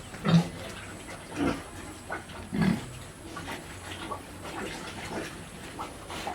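Pigs grunting in their pens: three loud grunts about a second apart in the first three seconds, then softer grunts.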